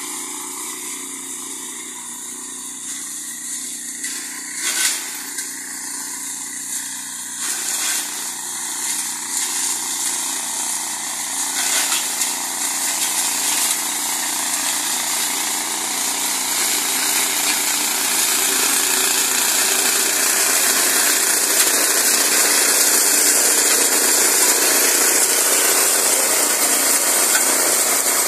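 Small petrol engine of a walk-behind brush-clearing machine running steadily under load as it is pushed through undergrowth, growing louder over the second half. A few sharp knocks come about five and seven seconds in.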